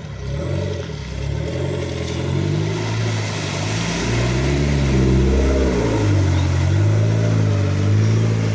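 Land Rover Freelander's engine revving as it ploughs through a deep mud puddle, its pitch rising and falling, with water splashing loudly about three to six seconds in; it then holds a higher, steady rev as the wheels spin and throw mud while pulling away.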